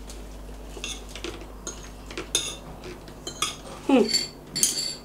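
Metal forks and spoons clinking and scraping on ceramic plates during a meal: a scatter of short clicks. About four seconds in there is a brief downward-sliding sound.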